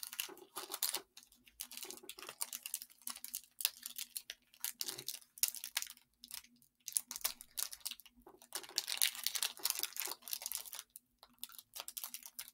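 Foil wrapper of a Pokémon TCG booster pack crinkling and tearing in short irregular bursts as it is pulled at and resists opening.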